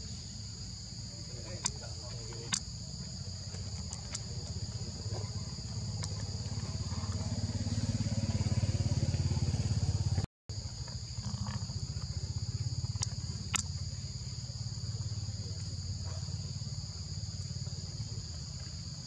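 Steady high-pitched insect chorus, held on two constant pitches, over a low rumble that swells in the middle. A few sharp clicks stand out, and the sound cuts out for an instant about ten seconds in.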